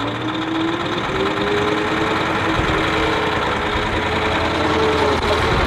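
Engine of a tracked armoured vehicle running at idle, with a steady whine that slowly rises in pitch.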